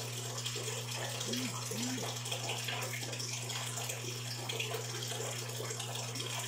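Steady running water, like the outflow of aquarium tank filters, over a constant low pump hum. About a second and a half in come two brief squeaky tones, each rising then falling.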